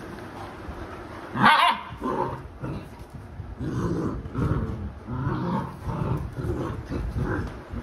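Labrador dogs growling in a run of short, low growls from about three and a half seconds in, after a single loud, sharp cry about a second and a half in.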